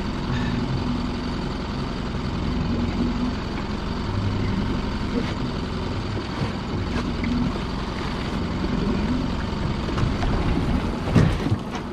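A motor runs steadily with a low hum that shifts in pitch while a lobster pot is hauled up on its line. A sharp knock comes near the end as the pot comes up to the gunwale.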